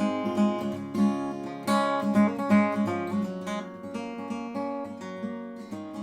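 Background music: acoustic guitar playing, plucked and strummed, fading out near the end.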